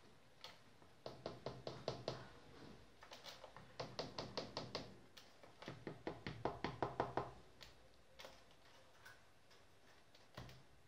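Rainbow lorikeet knocking its beak against its cage: three quick bursts of knocks at about six a second, then a few single taps.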